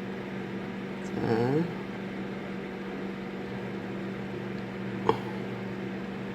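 Microwave oven running with a steady hum while it heats ginkgo nuts, early in a two-minute run. A brief rising vocal sound comes about a second in, and a single sharp click about five seconds in.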